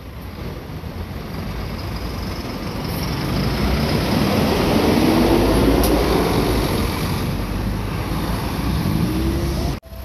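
Heavy road traffic over a level crossing: a diesel truck and a city bus drive across the rails close by, with engine and tyre noise that builds to a peak about halfway through and then eases. The sound cuts off abruptly just before the end.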